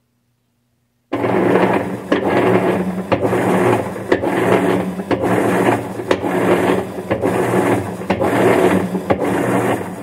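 Whirlpool top-load washing machine starting its wash agitation: a loud mechanical churning that pulses about once a second, with a click at each stroke over a steady motor hum. It cuts in suddenly about a second in.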